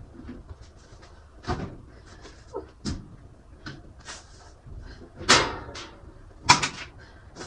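A series of sharp knocks and clatters from household items being handled and set down during cleaning, the loudest about five seconds in with a brief ringing tail.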